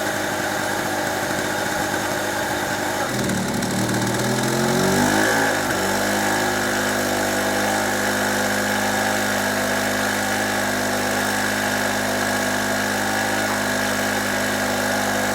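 Small two-stroke generator (a cheap 850-watt Chinese GMC clone of a Yamaha) running steadily. About three seconds in a 500-watt lamp load hits it: the engine bogs down, then its governor opens the carburettor throttle and the note climbs back over a couple of seconds and settles steady under the load.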